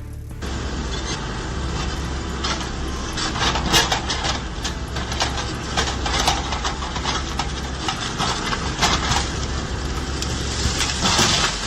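Chainsaw engine running, with irregular cracks and knocks throughout.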